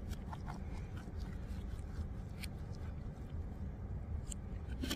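Quiet eating sounds: a knife and fork cutting into a roast chicken on a plate, with scattered soft clicks, over a steady low hum.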